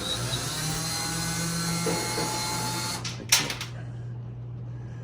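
Drill running in reverse for about three seconds, backing a screw out of the dryer's cabinet, followed by a few sharp clicks.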